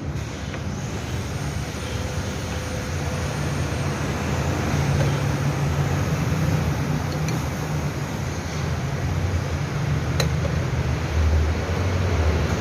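Steady motor vehicle noise: a low engine hum under a constant hiss, with one faint click about ten seconds in.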